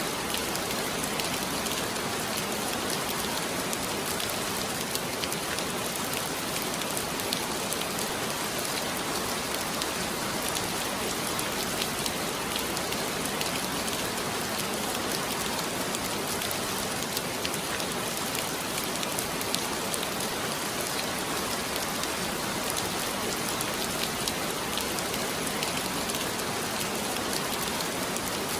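Heavy rain falling steadily, a dense even hiss with the patter of many separate drops striking a surface.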